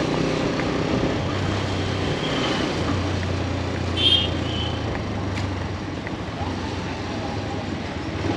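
A road vehicle's engine running steadily with road noise, with a brief high squeak about four seconds in.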